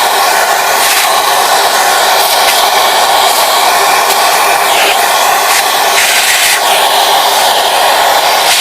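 Vacuum cleaner motor running steadily, a loud airflow noise with a few brief changes in the hiss.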